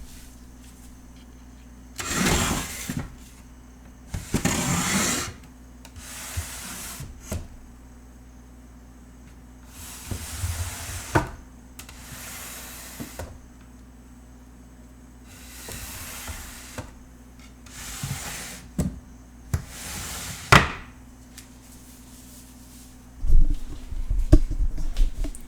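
Kitchen drawers sliding open and shut, about eight times, each slide a rush of noise about a second long, several ending in a sharp knock as the drawer closes. Near the end comes a clatter of low thuds and rattles, like pots and pans being knocked about.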